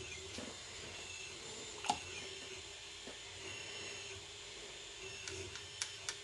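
Quiet room with a steady low hum; one sharp tap about two seconds in and a few light clicks near the end, as a paintbrush is worked in a metal tin of watercolour pans.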